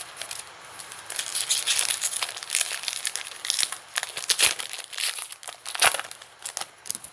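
A trading card pack wrapper being torn open and crinkled by hand: a busy run of crackling, rustling wrapper noise with a few sharper snaps.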